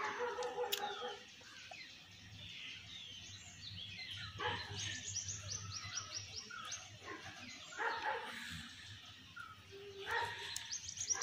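Animal calls in the background: a fast run of short, high, falling notes about five seconds in and again near the end, with a few short, lower calls in between.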